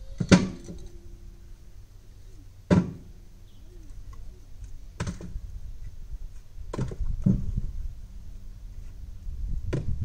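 Split firewood logs thrown one at a time into the steel front loader bucket of a backhoe, each landing with a sharp wooden thunk, about six in all with the loudest right at the start. A low steady engine hum runs underneath.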